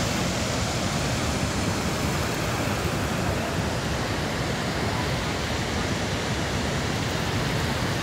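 Waterfall and the swollen river below it rushing, a steady, even noise of heavy water with no breaks.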